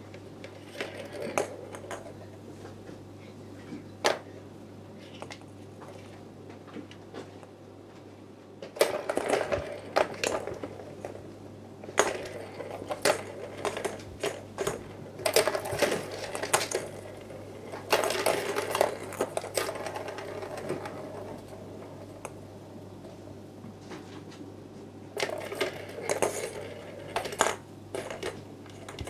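Plastic balls rolling and rattling around the tracks of a three-tier plastic cat toy as kittens bat at them, in bursts of clattering clicks with short pauses between.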